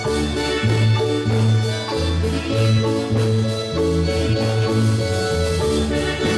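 Marimba band playing dance music, over a deep bass line that steps to a new note about every half second to a second.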